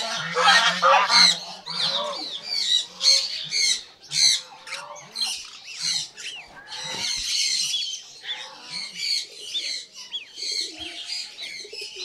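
Newly hatched white domestic goslings peeping over and over, with many short high calls overlapping as they are carried in hand. A lower honking call sounds underneath in the first two seconds.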